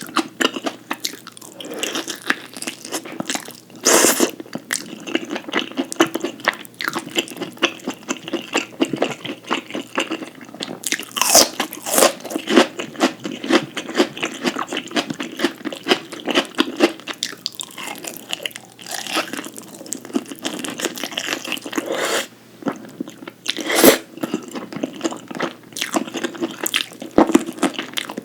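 Close-miked eating: a person biting and chewing crunchy food, with a steady run of crackly chewing sounds and a few louder, sharper bites, about four seconds in, around eleven seconds and near the end.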